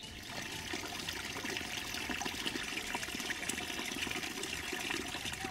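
Spring water running steadily out of a short pipe and splashing onto stones.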